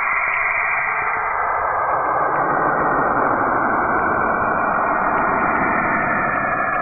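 Saturn's radio emissions recorded by the Cassini probe and converted into audio: a dense, noisy hiss that fills in deeper about two seconds in. It sounds like something howling in agony during a windstorm.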